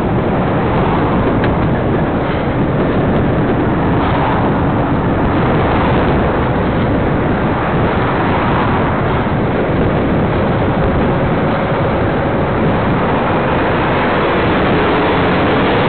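Steady rush of wind over the microphone and road noise while riding along a road, with a following truck's diesel engine running close behind. It grows slightly louder near the end.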